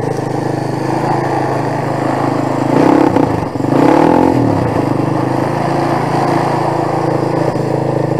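A 250 cc quad bike's engine idling steadily, revved up twice in quick succession about three and four seconds in, the pitch rising and falling each time, as the quad sits stuck in swamp mud and fails to pull free.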